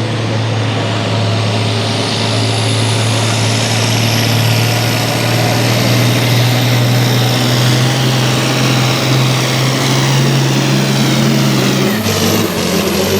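Altered pulling tractor engine running flat out under load while pulling the sled, with a thin high whine that climbs steadily. Near the end the engine note drops and breaks into uneven pops and crackles as the throttle comes off at the end of the run.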